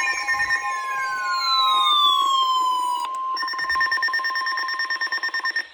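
Weather radio receivers sounding their alert alarms together for an incoming severe thunderstorm warning: a steady high tone with siren-like sweeps falling in pitch, then from about three seconds in a fast-pulsing beep. It cuts off abruptly at the end as the broadcast voice takes over.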